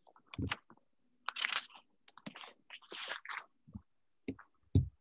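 Irregular rustling and crunching handling noise picked up by a video-call participant's microphone, broken by a few short low thumps, the loudest near the end.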